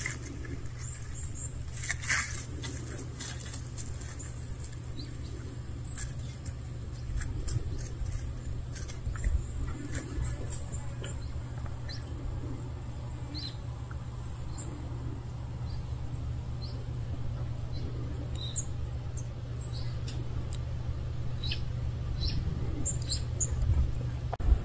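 Outdoor ambience: a steady low rumble with scattered faint bird chirps and occasional small clicks and rustles.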